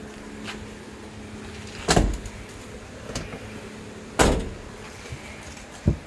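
Proton Saga car door being shut: two loud, heavy slams about two seconds apart, then a smaller knock near the end, over a steady low hum.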